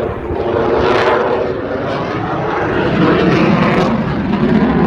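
Loud jet noise of a Lockheed Martin F-22 Raptor flying past, its twin turbofan engines making a dense roar that swells toward the end.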